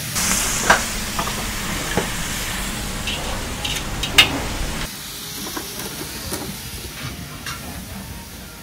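Cabbage and meat sizzling in a hot iron wok with a steady steamy hiss, broken by a few sharp clanks of the metal ladle and spatula against the pan. About five seconds in the sizzle drops away to quieter kitchen noise.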